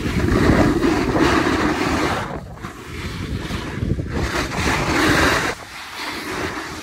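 Wind rushing over the microphone while riding downhill, with edges scraping over packed snow, swelling and fading with the turns.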